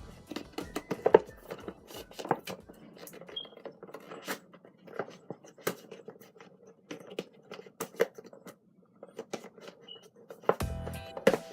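Hands working open a die-cast figure's plastic-and-card blister package: irregular clicks, scratches and scraping of plastic and cardboard. Music begins near the end.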